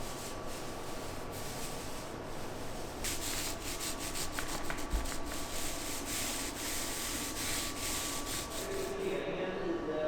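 Rapid rubbing or scraping strokes across a surface, coming thickest in the middle of the stretch, with a faint steady hum underneath.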